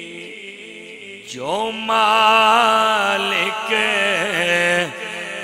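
A man chanting in a drawn-out melodic voice. The first notes are soft and held low, then about a second and a half in the voice glides upward into a louder, sustained phrase that wavers up and down.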